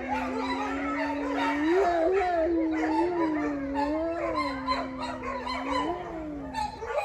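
A pack of wolves howling together in chorus: one low howl held steadily throughout, wavering in pitch, with several higher howls rising and falling over it. This is the wolves' daily group howl, which they start all at once at the same time every morning.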